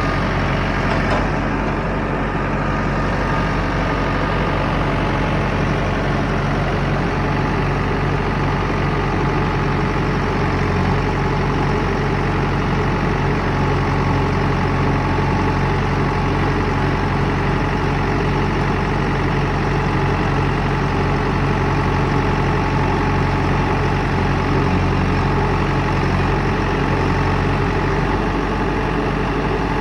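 JCB 3DX backhoe loader's diesel engine running steadily, with a slight change in its note near the end.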